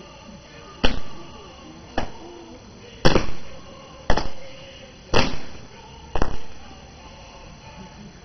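Military honor guard drill: six sharp, loud stamps evenly spaced about a second apart, each ringing off briefly.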